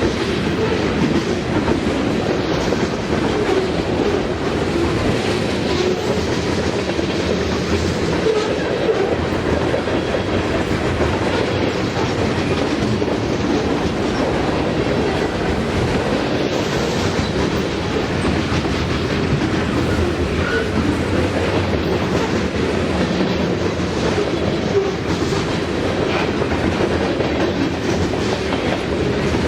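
Norfolk Southern freight train cars rolling past, a steady wheel-on-rail noise.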